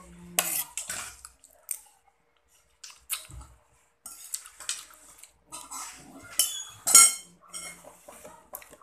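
Metal spoon scraping and clinking against a ceramic bowl while scooping rice, in a run of short scrapes and taps. The loudest is a ringing clink about seven seconds in.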